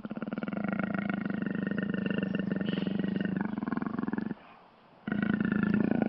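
Jaguar growling: one long, rough growl of about four seconds, a short break, then a second growl starting about five seconds in.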